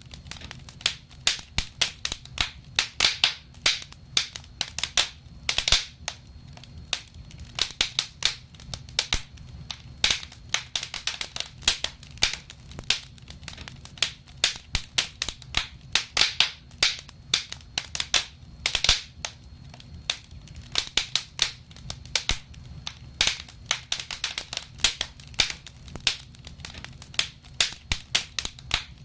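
Wood fire crackling in a fireplace: a dense, irregular run of small snaps and pops with louder cracks now and then, over a low steady rumble.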